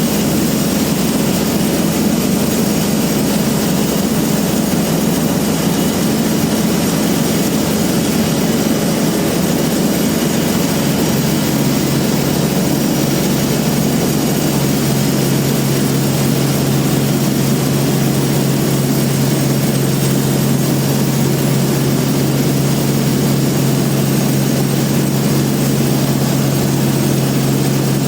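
Industrial band sawmill machinery running with a loud, steady drone. A lower hum grows stronger about halfway through.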